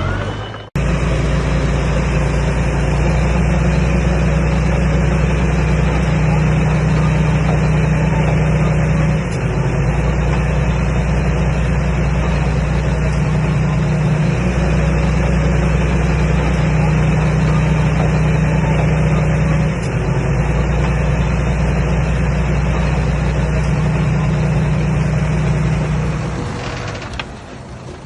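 Komatsu D21A bulldozer's diesel engine running steadily with a deep hum, dipping briefly a few times and tailing off near the end.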